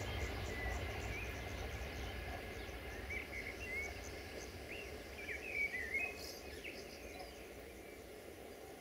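Birds chirping in short bursts, mostly in the middle of the clip, over a low rumble from the distant diesel railcar that slowly fades.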